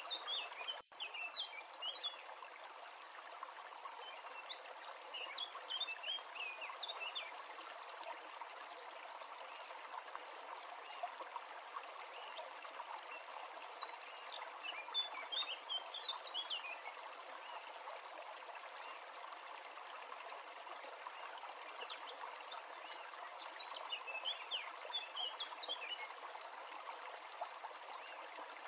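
Small songbirds chirping in four short clusters of quick, high notes, over a steady, even hiss like running water.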